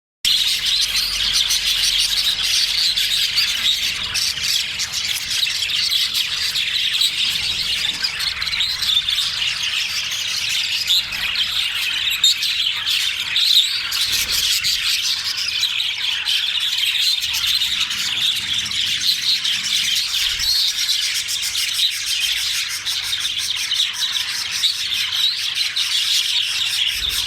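A flock of male budgerigars chattering, chirping and squawking all at once in a steady, unbroken din.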